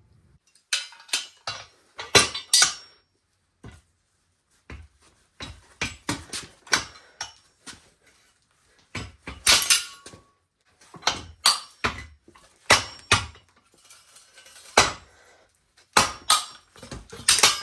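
Hammer blows on steel with metallic clanks and clinks, irregular and in clusters with short pauses, as nuts are knocked loose from a steel hitch plate.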